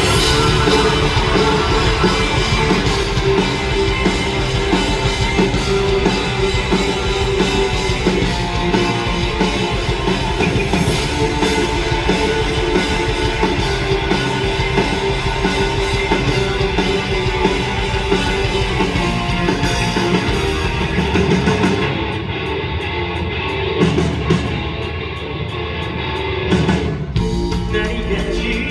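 Live rock band playing a song at full volume. About 22 seconds in, the highest parts drop out for a few seconds and the music gets a little quieter, then the full band comes back near the end.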